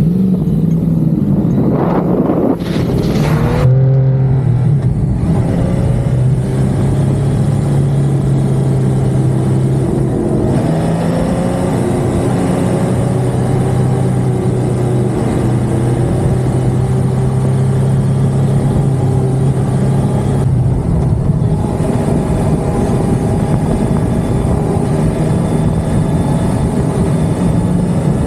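Motorcycle engine pulling away and riding on: the revs climb in the first few seconds, then the engine holds a steady note, with brief drops in pitch around ten and twenty seconds in as it changes gear.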